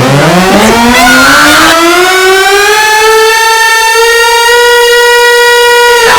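Outdoor warning siren winding up: a loud wail that rises steadily in pitch from low, levels off into a held high tone, and starts to wind down right at the end.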